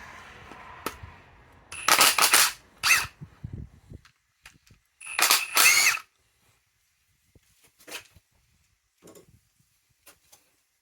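Three short bursts of rapid mechanical hammering from a power tool working on the engine teardown, the last about five seconds in, followed by a few faint clicks and knocks of parts being handled.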